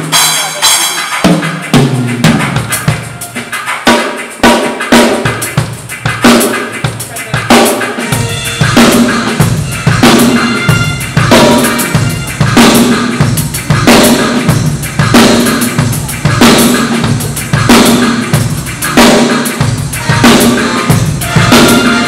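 Acoustic drum kit played live in a sound check, with bass drum, snare and cymbals. The playing starts lighter, then settles about eight seconds in into a steady beat with a heavy bass drum.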